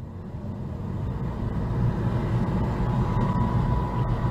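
Car road noise heard from inside the cabin on a wet motorway: a low rumble of engine and tyres that grows steadily louder.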